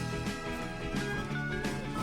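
Background music with plucked or struck notes and a steady beat.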